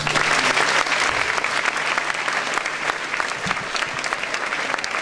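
Large seated audience applauding, many hands clapping at once. It starts abruptly, then thins toward the end to fewer, more separate claps.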